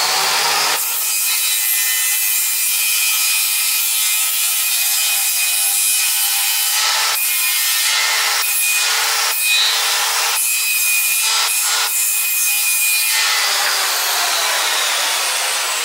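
Electric circular saw running at full speed, its blade dragged sideways along the edge of a wooden cabinet base to shave it down; really loud. The sound dips briefly several times in the second half, and about three seconds before the end the motor is switched off and winds down.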